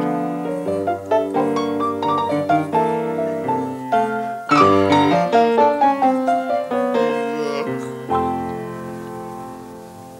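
Solo jazz piano, played with runs and chords, a loud flourish about four and a half seconds in. A final chord is struck about eight seconds in and left to ring and fade away, ending the tune.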